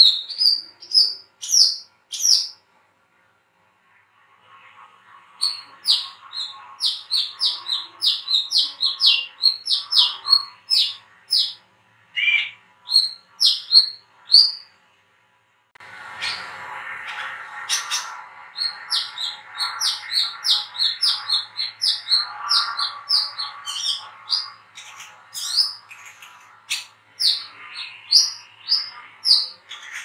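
Brown-throated sunbird (kolibri kelapa, 'wiceh') singing in a rapid, high twittering, several sharp chirps a second, in long runs with a brief pause about three seconds in.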